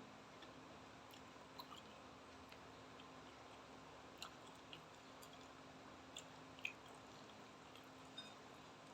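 A person chewing chicken liver and gizzard close to the microphone: a few faint, scattered wet mouth clicks over a steady low hiss, the loudest a little past halfway.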